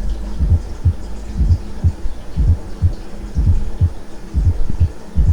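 Recorded heart sounds at about one beat a second, each beat a cluster of low thumps: the first and second heart sounds with a fourth heart sound (atrial gallop) just before the first. A steady hum runs underneath.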